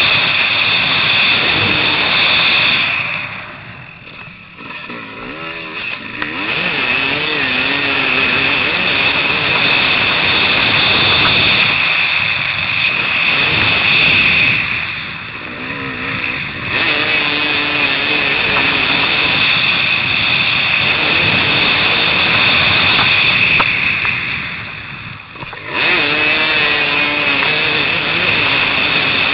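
Motocross dirt bike engine at high revs, heard from the rider's helmet. Three times the throttle is shut and the sound drops away, a few seconds in, about halfway and near the end, before the engine picks up again with the revs climbing and falling.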